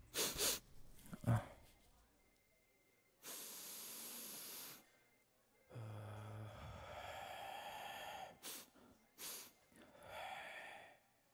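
A man snorting powder through a rolled banknote: a long, sharp sniff about three seconds in, then a low, voiced exhale that runs into a long breath, two quick sniffs, and a last breath out near the end.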